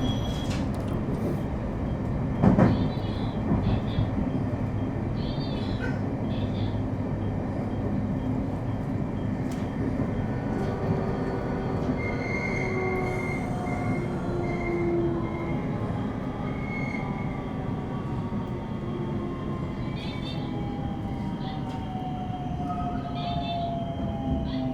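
Electric train running along the track, heard from inside, with a single sharp knock about two and a half seconds in. Near the end a faint motor whine falls slowly in pitch as the train slows.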